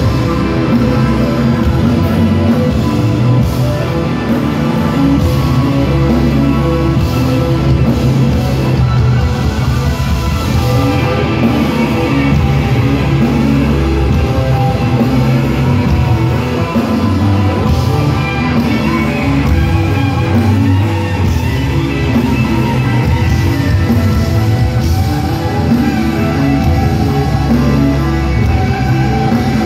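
Rock band playing live in a large hall: electric guitars, bass and drums, loud and steady, heard from within the crowd.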